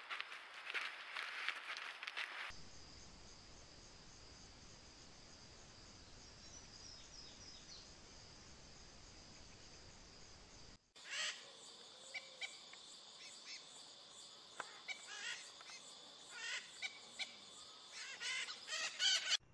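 Forest ambience from trail cameras: a crackling rustle for the first two seconds, then a steady high insect drone with scattered bird chirps and calls. The sound changes abruptly twice as one clip gives way to the next.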